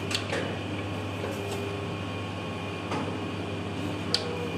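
Automatic roti-making machine running with a steady mechanical hum, pressing dough balls into rotis, and a few sharp clicks from its mechanism scattered through.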